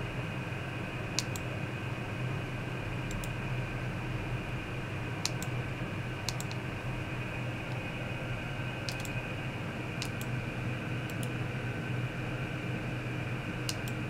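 Computer mouse and keyboard clicking: about a dozen short clicks, several in quick pairs, as menu items are chosen and keys pressed. Under them runs a steady hum with faint high whining tones.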